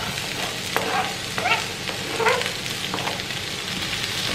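Chopped red onion frying in hot oil in a pan: a steady sizzle, stirred now and then.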